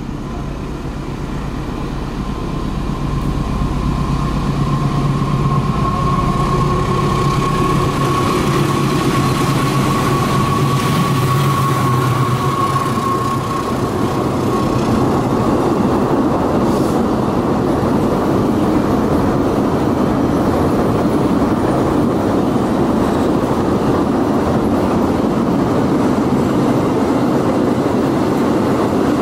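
CC 206 diesel locomotive passing close, its engine droning with a steady high whine, followed by a long string of empty container flatcars rattling and clattering over the rails.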